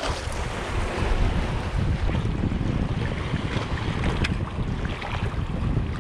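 Wind buffeting the microphone as a steady low rumble, with sea waves washing against the rocks. A few short clicks come through about two and four seconds in.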